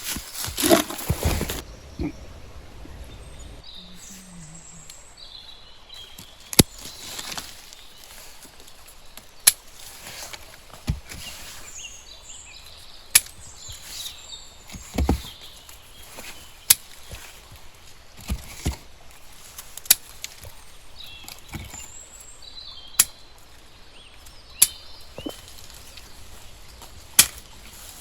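Sharp single clicks or snaps, about one every two to three seconds, over a steady outdoor background with faint bird chirps.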